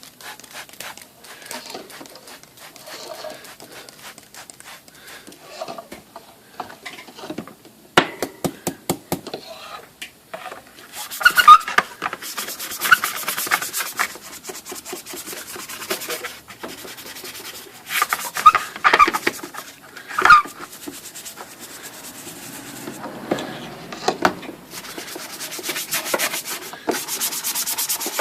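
A cleaning rag rubbed hard back and forth over a typewriter cover panel, scrubbing off grime. The rubbing comes in spells of quick strokes, loudest a third of the way in, about two-thirds in, and near the end.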